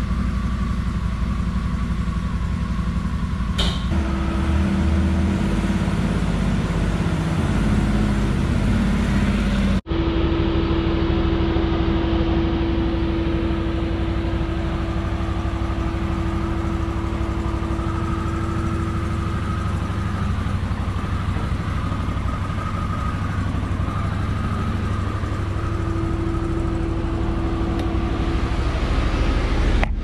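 Can-Am Defender's V-twin engine idling steadily, with a single click about four seconds in and a brief dropout near ten seconds.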